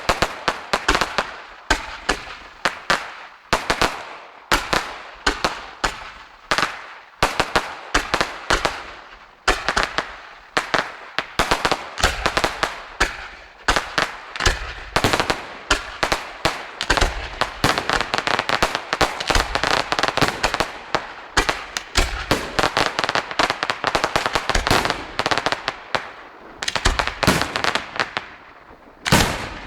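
Fireworks display: a rapid, unbroken run of sharp bangs several a second with crackling between them, thickening into a dense barrage in the middle. One last loud bang comes near the end.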